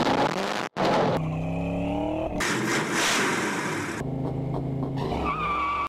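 V8 car engine revving and accelerating in several short clips cut together, with a sudden break about two-thirds of a second in. The engine note climbs in pitch as it revs up, then holds steadier near the end.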